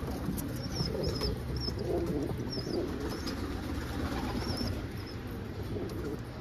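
Domestic pigeons cooing in a loft, with short high chirps now and then through the first few seconds.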